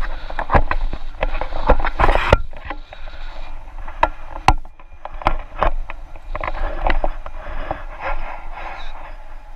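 Wind rushing and buffeting over a selfie-stick camera's microphone in flight on a tandem paraglider, with a low rumble and many sharp pops and crackles from the gusts.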